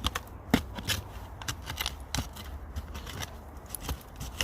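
Digging a buried bottle out of an old rubbish tip: a tool scrapes and clicks irregularly against the dirt and debris, several sharp clicks a second.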